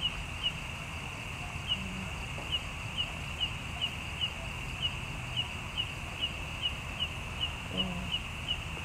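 Insects chirring: a steady high hum with a short, sharp chirp repeating evenly about two or three times a second.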